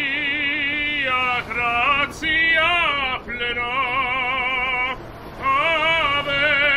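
A male operatic voice singing a classical song, its long held notes wavering with wide vibrato, in several phrases with a short break for breath about five seconds in.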